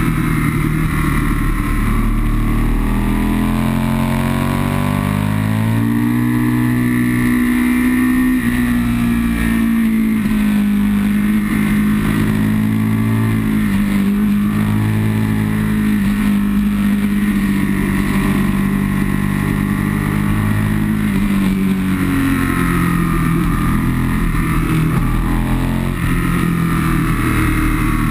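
Aprilia sportbike engine at speed, heard from on the bike, its pitch climbing and falling with the throttle over steady wind noise. The pitch climbs a few seconds in, holds high through the middle, then drops and climbs again near the end.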